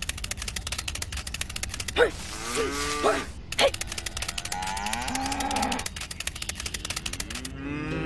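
Cow mooing: a few calls between about two and six seconds in, the last one longer and lower. Under them runs a fast, even clicking that stops about six seconds in.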